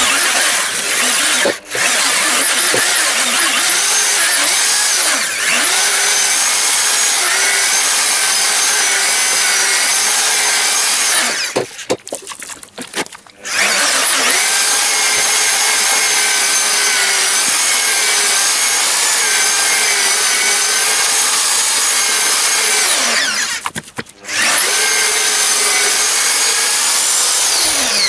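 Handheld electric paddle mixer whining as it stirs a bucket of mortar, its motor pitch wavering with the load of the thick mix. It stops briefly twice, a little before halfway and again a few seconds before the end, each time starting up again.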